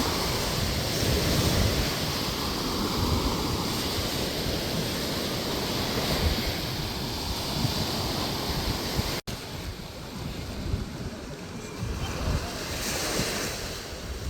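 Ocean surf washing on a beach, with wind buffeting the microphone. The sound cuts out for an instant about nine seconds in, then the surf carries on a little quieter.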